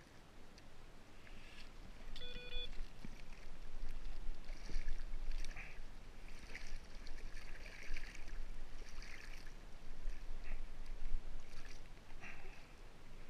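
Irregular splashing and sloshing of seawater at the side of a kayak as a hooked blue shark is worked alongside, over a steady low wind rumble on the microphone.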